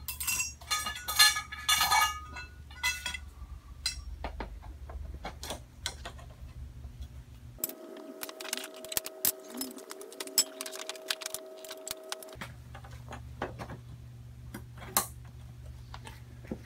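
Metal grow-tent frame poles clinking and clattering as they are handled and slotted together. A dense burst of clinks in the first two seconds is loudest, with scattered knocks after it and a steady hum for a few seconds midway.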